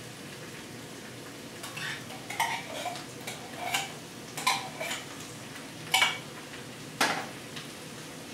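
A metal spoon scraping and knocking inside a tin can as condensed cream of mushroom soup is scooped out into a frying pan: a run of short scrapes and clinks, with two sharper knocks near the end.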